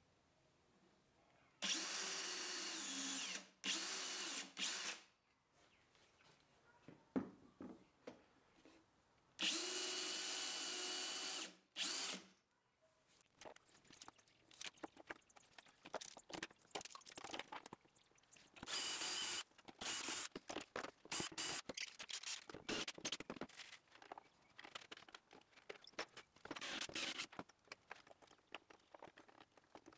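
Cordless drill running in two bursts of a few seconds each, a steady motor whine that dips briefly during the first burst. After that come scattered clicks, scrapes and rattles of hands working on a wooden drawer.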